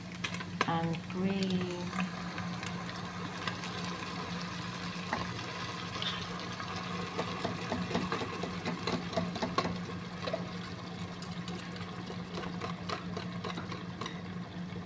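Bacon and turkey sausage sizzling in butter in a frying pan, with many small irregular crackles over a steady low hum.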